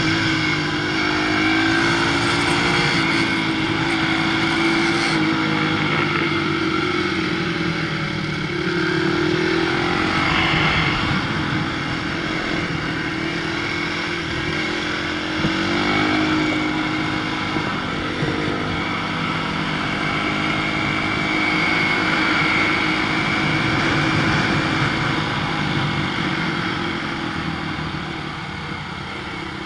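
Onboard sound of a 250 cc supermoto motorcycle's engine being ridden hard around a tight track, its pitch climbing and dropping again and again with throttle and gear changes, over steady wind noise. It eases off near the end as the bike slows.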